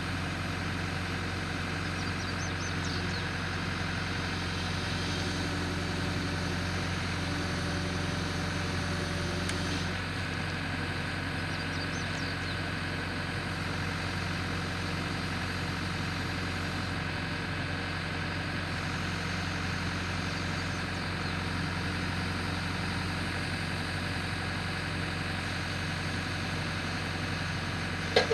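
Backhoe engine running steadily at constant speed, with a slight change in its tone about ten seconds in.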